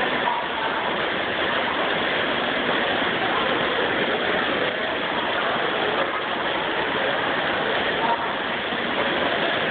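Steady rushing whir of many toy die-cast cars rolling along the tracks and conveyor lifts of a large kinetic sculpture, a dense continuous noise that does not let up.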